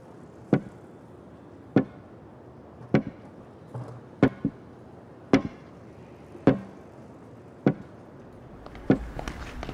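Sharp knocks repeating at a slow, steady pace, about one every second and a quarter, with a couple of softer taps in between. Near the end, quicker clicks and a low rumble come in.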